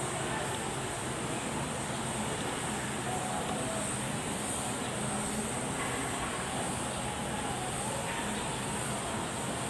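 Steady background drone with a faint low hum, even in level throughout.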